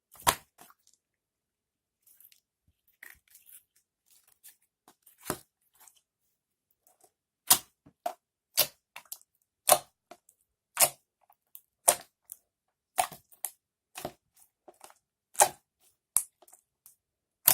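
Slime being worked by hand, giving sharp pops and clicks: a few scattered at first, then about one a second through the second half.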